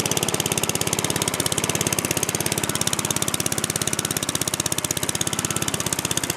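Single-cylinder Tecumseh engine of a push lawn mower running steadily after a cold start, with a fast, even firing beat. Its carburetor has issues, which the owner thinks is leaking fuel.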